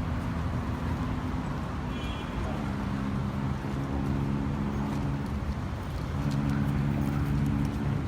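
Urban street traffic: vehicle engines running under a steady hum of road noise. A low, steady engine drone comes in twice, about two and a half seconds in and again near the end.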